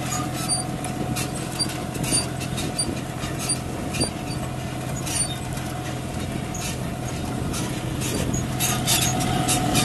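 John Deere 5105 tractor's three-cylinder diesel engine running steadily under load as it pulls a potato planter, with scattered light clicks and rattles from the planter's metal mechanism.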